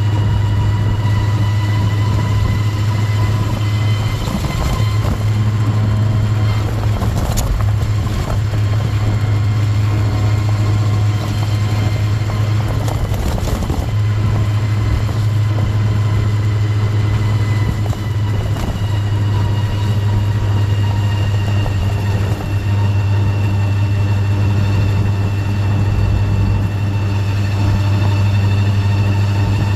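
Honda Gyro Canopy scooter on the move, with a loud steady low drone over the engine and road noise. This is the abnormal 'boo' noise that sets in above about 20 km/h.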